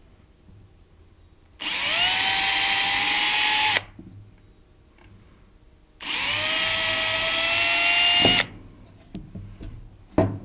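Milwaukee cordless drill pre-drilling pilot holes through a door hinge into wood: two bursts of about two seconds each, the motor whine rising as it spins up and then holding steady. A short knock comes near the end.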